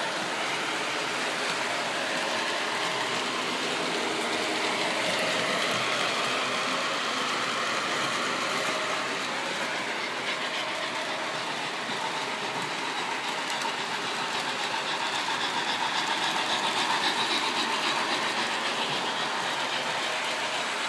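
O gauge model trains running around the layout's track: a steady rolling rumble and clatter of wheels and motors, a little louder near the end.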